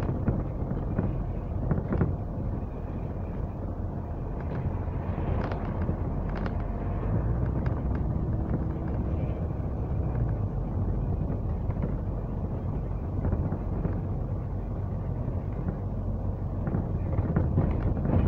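Inside a moving double-decker bus: a steady low engine and road rumble, with scattered rattles and knocks from the bodywork.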